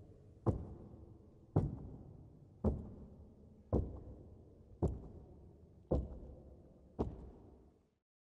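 Honour guards' boots striking the floor in unison in a slow ceremonial march, seven heavy footfalls about a second apart, each echoing in a large hall.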